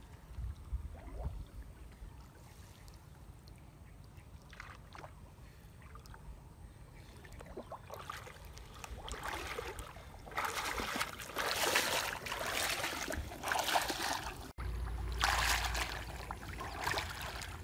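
Water splashing and dripping as a wet gill net is hauled up out of a shallow lake. The splashing comes in bursts that start about eight seconds in and grow loud in the second half.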